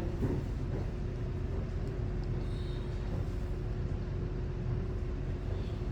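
Steady low rumble of background hum in a shop, with a faint steady tone running through it.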